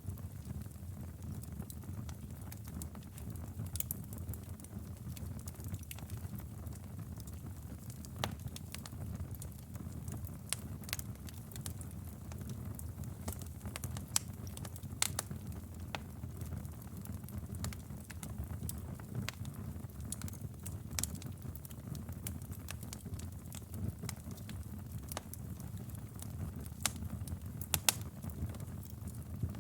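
Wood fire burning in a fireplace: a steady low rumble of the flames with irregular sharp crackles and pops, a few louder snaps among them.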